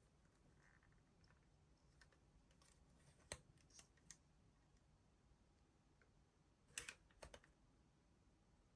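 Near silence: faint room tone with a handful of soft clicks and taps, a few around the middle and a small cluster about two-thirds of the way in.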